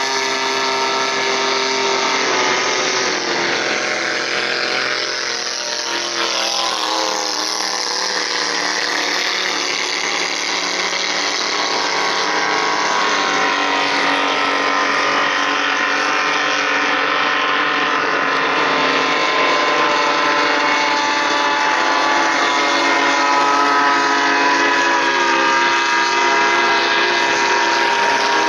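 Racing speedboat engines running hard at high revs, several engine notes sounding at once. A few seconds in, the pitch slides down as a boat goes by, and the sound grows slightly louder near the end as another boat comes close.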